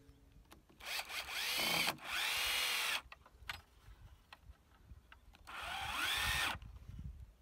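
Cordless drill running into pallet wood in three runs of about a second each, its motor whine rising as it spins up and then holding. Two runs come back to back about a second in, and a third comes about five and a half seconds in.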